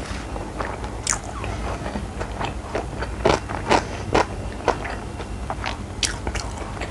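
A person chewing and biting food close to the microphone: irregular crunches and mouth clicks, several a second, over a low steady hum.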